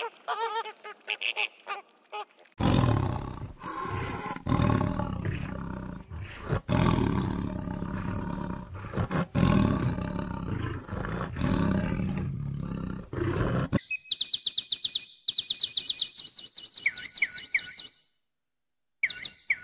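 A large animal roaring and growling, low and rough, for about eleven seconds with short breaks. Then a run of rapid, high-pitched repeated chirps and trills, with a few short high calls before the roaring.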